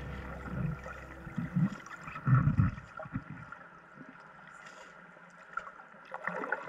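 Muffled water movement picked up by an underwater camera: low, irregular gurgling swells, several in the first three seconds, then faint, picking up again near the end.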